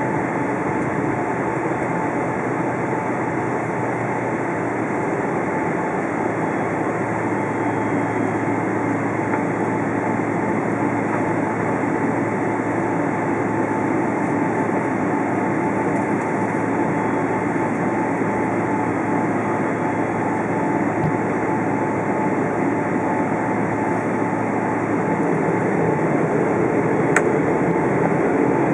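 Steady cabin noise inside a Boeing 777-300ER taxiing before takeoff: the rush of its GE90 engines and air conditioning, with a steady whine and a low hum. It grows a little louder near the end, and there is one sharp click just before the end.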